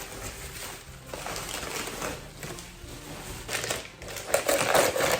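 Packing paper being crumpled and rustled as a wrapped piece is unwrapped, with a louder bout of crinkling near the end.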